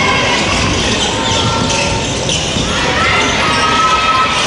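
Steady din of voices calling and cheering in a large, echoing gymnasium during a basketball game, with more drawn-out calls from about three seconds in.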